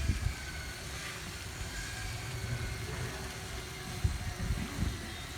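Water spraying from a multi-tier fountain nozzle as a faint steady hiss, under a louder low rumble with a few thumps about four seconds in.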